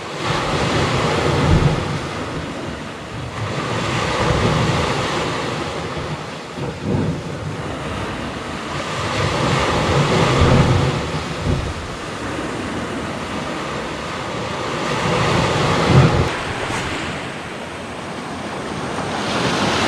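Sea waves washing and breaking on a rocky shore, swelling and ebbing every few seconds, with wind rumbling on the microphone.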